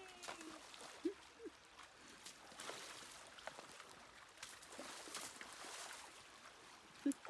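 A horse's hooves splashing as it wades through a shallow creek, with irregular faint splashes. A few brief pitched sounds come about a second in and again near the end.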